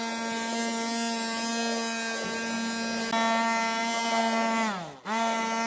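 Electric stick blender running steadily with a motor hum, whipping a powdered cream mix with cold milk in a plastic bowl. Near the end the motor winds down in pitch and then starts up again.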